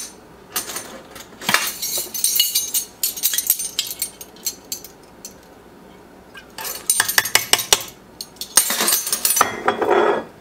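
Metal measuring spoons clinking and a glass vanilla bottle being handled, in three bursts of small clinks and clatter with quiet gaps between.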